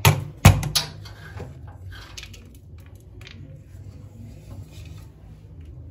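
Palm slapping the base of an upturned metal cake tin to loosen the cake, two sharp slaps in the first half second. Then faint light clinks and rustles as the tin is lifted off the cake.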